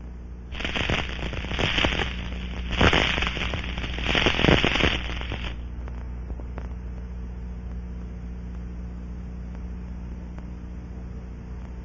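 Dense crackling of liquid leak amplifier bubbles collapsing over a small leak on a pressurized fuel cell, heard through an Ultraprobe 2000 ultrasonic detector. The crackle comes in four swelling surges and stops about five and a half seconds in. It marks the leak site.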